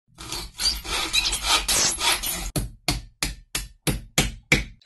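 Rhythmic rasping strokes: a dense, uneven run for about two and a half seconds, then eight short, separate strokes at about three a second.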